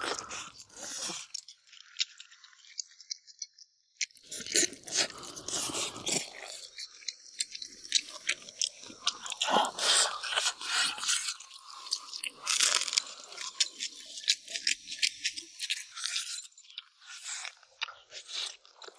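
Close-up eating sounds: biting meat off a braised bone and chewing, with irregular crunchy, wet strokes. The sounds break off about a second in and resume about four seconds in, then go on busily.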